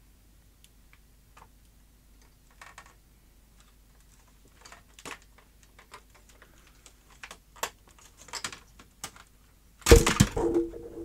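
Light plastic clicks, taps and rustles as a disassembled LCD monitor's bezel, circuit board and cable are handled, growing busier, then a much louder burst of clattering about ten seconds in.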